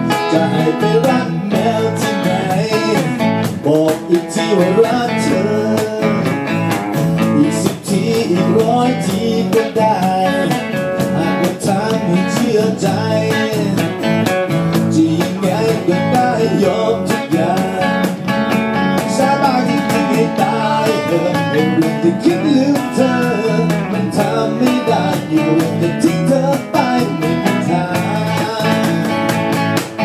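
Live acoustic band performance: a male voice sings over strummed acoustic guitars, with a cajon tapping out the beat.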